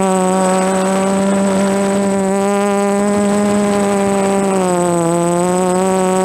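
Brushless motors and propellers of a DJI F330 quadcopter whining steadily in flight, the pitch dipping briefly about five seconds in before rising again.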